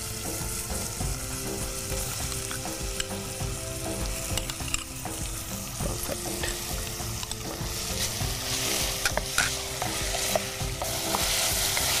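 Sliced onions and tomatoes sizzling in hot oil in a pot while a spatula stirs them, with small clicks of the spatula against the pot. The sizzle grows louder about nine seconds in.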